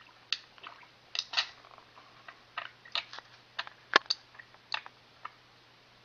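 Budgerigar making a series of sharp clicks at irregular intervals, the loudest about four seconds in.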